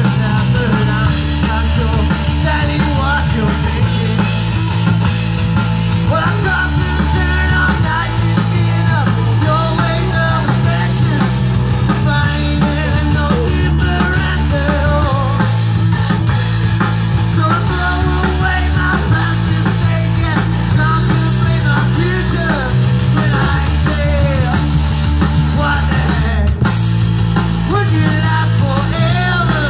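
Live rock band playing amplified music: electric guitars and drums over a heavy bass line, with a sung vocal melody.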